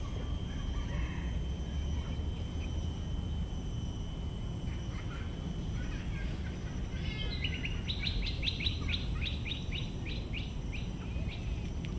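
A bird calling in a quick run of repeated sharp notes, about four a second, for around four seconds in the second half. Under it runs a steady low background rumble, and a thin steady high whine is heard in the first half.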